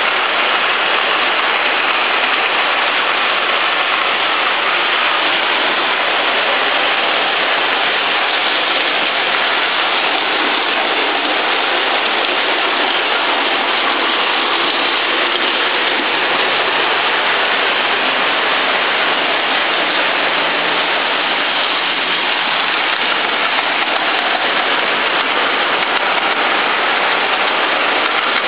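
Lionel O-gauge trains running on three-rail track: a steady, loud rolling noise of metal wheels on the rails.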